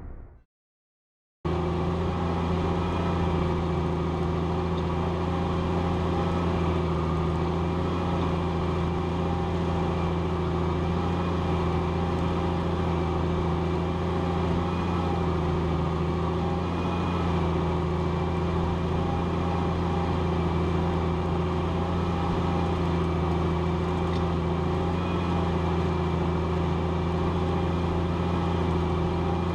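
Challenger MT765B tracked tractor's diesel engine running at a constant, steady pitch while pulling a plough, a deep even drone. It cuts in suddenly after a second and a half of silence.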